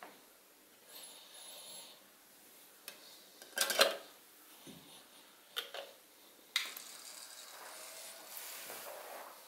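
Sony CDP-XA50ES top-loading CD player being loaded: a CD and its metal stabilizer puck set into the disc well with a loud metallic clack about three and a half seconds in, amid smaller clicks. From about six and a half seconds the motorized sliding lid runs closed with a steady whirr.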